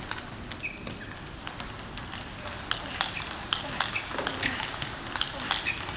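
Table tennis rally: a celluloid-type ball clicking sharply off the players' bats and the table, sparse at first and then about two hits a second from a little before halfway through.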